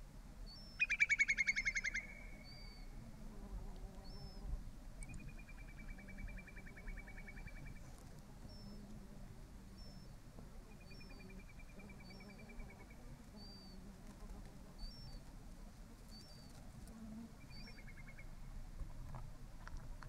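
Small birds singing: a loud rapid trill about a second in, then three softer, longer trills, with short high chirps recurring throughout.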